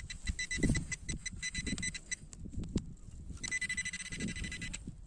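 Handheld metal-detecting pinpointer probing a clump of dug soil: it gives a rapid run of beeps, then about three and a half seconds in a steady high tone for a second or so as it finds the metal target. Wind rumble on the microphone throughout.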